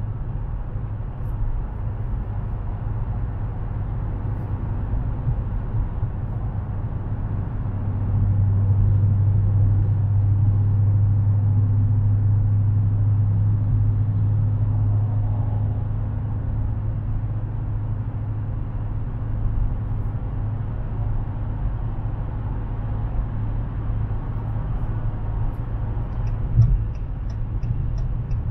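Inside the cabin of a Dodge Challenger Widebody cruising on a wet highway: a steady low V8 drone over tyre noise. The drone swells louder for several seconds in the middle, then settles back, and there is a brief thump near the end.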